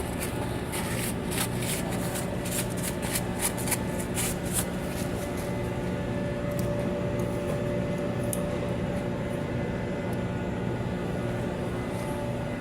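Quick light clicks for the first few seconds, then only a few, from a micrometer being closed on a freshly turned lathe workpiece to check its diameter. A steady machine-shop hum runs underneath.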